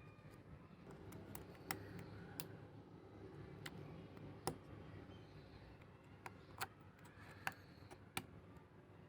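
Sharp, irregular clicks and taps, about ten of them and a second or so apart, over a faint low hum.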